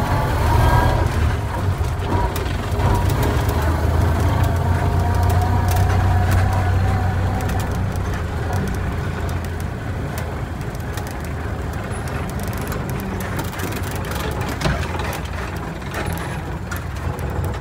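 1929 Ford Model A's four-cylinder engine running as the mail truck rolls slowly at low speed. It eases off about halfway through, with scattered light clicks and rattles from the body, typical of the truck's sliding interior door rattling on its rollers.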